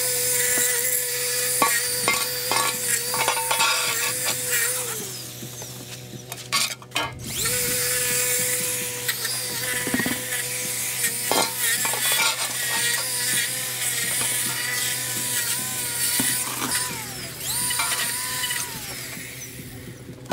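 Battery-powered Ego string trimmer with a steady high-pitched motor whine. About five seconds in it winds down and stops, then spins back up about two seconds later. Near the end its pitch sags briefly a few times, and scattered sharp ticks come through.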